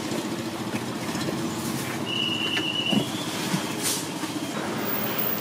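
Steady low rumble of street traffic. About two seconds in, a high steady squeal starts and steps up in pitch before stopping near four seconds. A few light knocks of plastic spatulas on the steel food tray come through.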